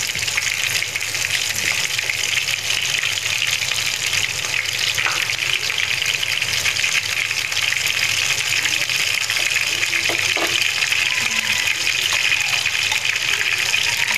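Battered small shrimp fritters sizzling steadily in hot oil in a frying pan.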